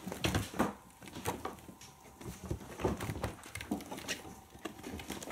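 Kittens' claws scrabbling and scratching on a sisal-wrapped cat-tree post and its fabric cubby: an irregular patter of scratches and soft knocks.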